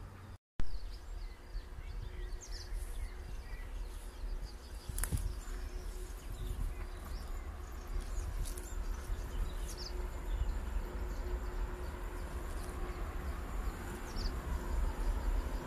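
Outdoor ambience beside a railway line: wind rumbling on the microphone, with scattered bird chirps. A faint hum builds near the end as a train approaches. There is a brief dropout and pop about half a second in.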